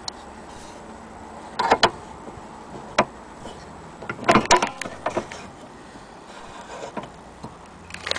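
Metal clicks and knocks from handling a portable Columbia gramophone's winding crank and chrome soundbox. There is a tight cluster of sharp clicks about a second and a half in, single clicks around three and seven seconds, and a busier run of clicks from about four to five seconds.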